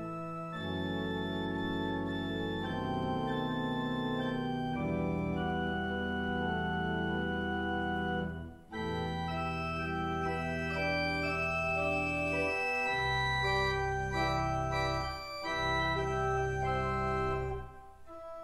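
Church organ playing a hymn in sustained chords over deep pedal bass notes, with a brief break between phrases about eight and a half seconds in and another near the end.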